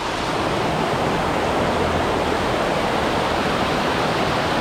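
Waterfall: a steady rush of water pouring down over rocks.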